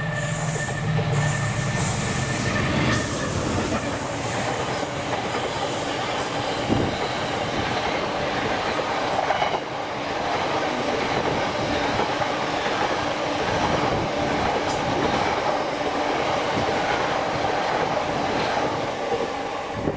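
Freight train of tank wagons running past, a steady rush and rattle of wagon wheels on the rails with some clickety-clack. A humming tone fades out about three seconds in.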